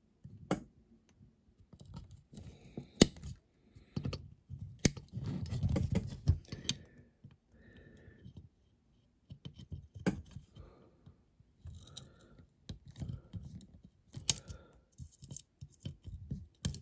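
Craft knife paring a small glued-in piece inside a die-cast toy car body: irregular light scrapes and cuts with several sharp clicks, the sharpest about three seconds in.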